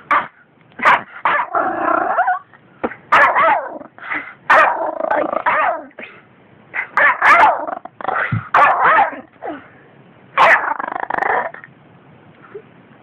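Yorkshire terrier barking repeatedly in short bouts, some barks running on into longer growly sounds.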